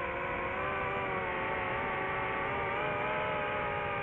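DJI FPV drone's motors and Master Airscrew Ludicrous propellers whining in flight: a steady multi-toned whine whose pitch drifts gently up and down.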